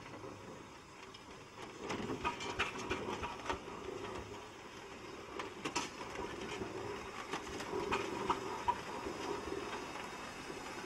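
Aveling and Porter steam road roller running, with irregular mechanical clanks and knocks over a steady running noise. The clanking picks up about two seconds in.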